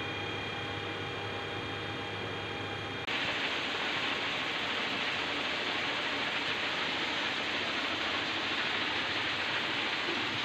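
Steady machine noise of a railway ballast cleaning machine at its screening unit. For the first three seconds it is a hum with a few steady tones; then it changes abruptly to a louder, even rushing noise.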